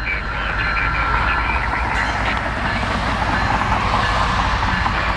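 Diesel engine of a GE ES44AC locomotive running, a steady noise with no clear rhythm or break.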